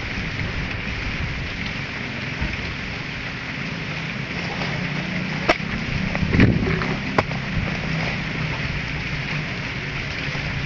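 Garden hoe striking into the soil three times in quick succession, about halfway through, over a steady outdoor hiss.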